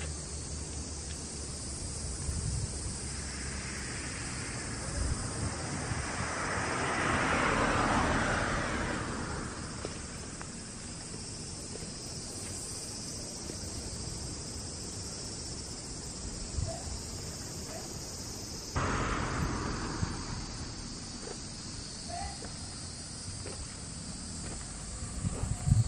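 Insects droning steadily and high-pitched over low wind rumble on the microphone. A vehicle passes on the road, rising to its loudest about eight seconds in and fading, and a second, shorter swell starts suddenly about two-thirds of the way through.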